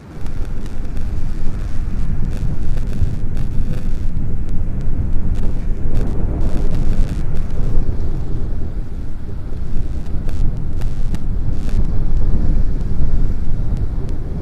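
Sea surf washing against a shore of boulders, nearly buried under a loud, steady low rumble of wind on the microphone.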